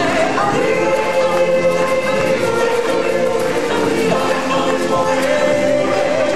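A group of voices singing with backing music, amplified through the stage's sound system, with a lead singer on a microphone. Held notes and a steady, loud level run through it without a break.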